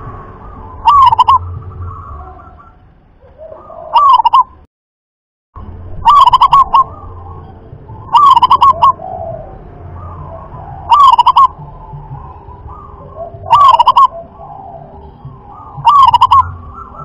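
Zebra dove (perkutut) cooing: a short trilled coo phrase repeated about every two and a half seconds, seven times. The sound cuts out completely for about a second just under five seconds in.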